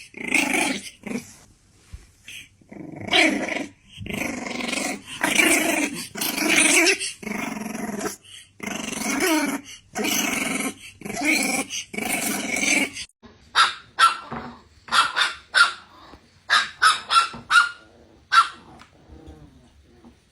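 A dog growling in long, loud stretches, then switching to a run of short, sharp barks about thirteen seconds in.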